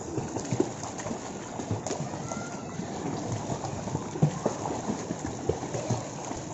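Pool water splashing as swimmers kick and paddle, a steady wash of water with many irregular splashes.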